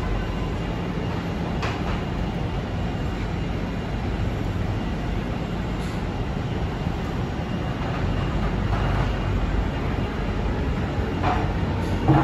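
Steady low rumble of factory machinery running, with a few light knocks, the loudest near the end.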